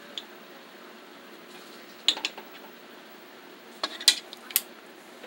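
Metal tongs clinking against a pressure cooker pot while beef ribs are moved: a single click at the start, a couple of sharp clinks about two seconds in and a quick cluster around four seconds in.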